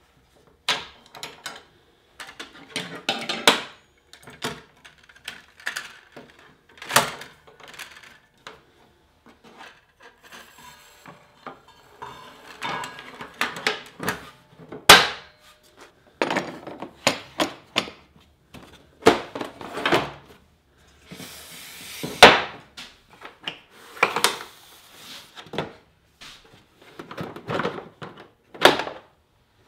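Parts of a SawStop jobsite table saw handled and fitted by hand during assembly: irregular clicks, clunks and rattles of metal and plastic parts. Two sharp knocks stand out, about fifteen seconds in and again about seven seconds later.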